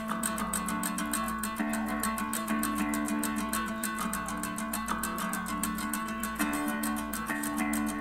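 Background production music led by plucked guitar over a fast, steady beat.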